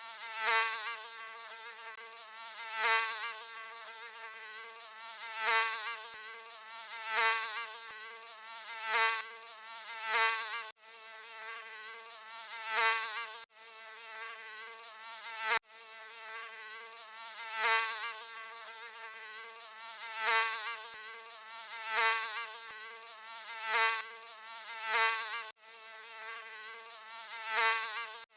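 Mosquito wing buzz: a continuous high, slightly wavering whine that swells louder every couple of seconds, as if the insect is flying close past the ear. A few times it cuts out for an instant and starts again.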